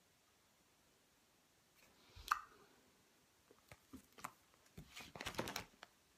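Handling of a paperback guidebook: one sharp click a little over two seconds in, then scattered clicks and a short patch of rustling near the end.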